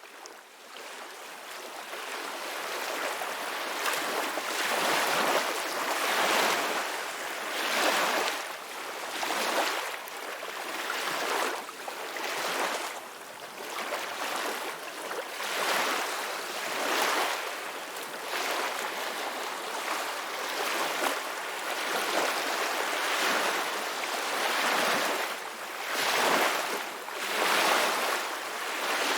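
Ocean waves breaking and washing ashore, a steady rush of surf that swells and falls back every couple of seconds. It fades in over the first few seconds.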